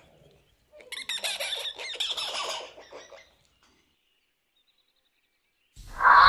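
Monkey screeching: a rapid run of harsh, shrill cries lasting about two and a half seconds, then silence. Loud music starts just before the end.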